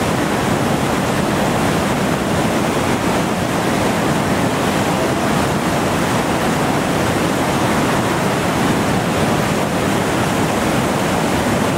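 Steady, loud rush of a big whitewater rapid at high water, the river pouring over rock ledges.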